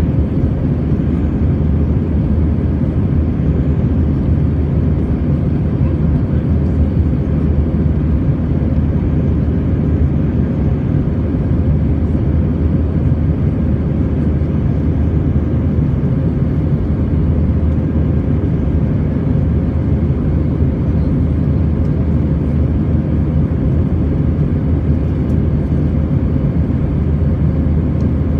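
Steady engine and airflow noise inside the cabin of an Airbus A320-family airliner climbing after takeoff: a deep, even rumble with a faint steady hum, unchanging throughout.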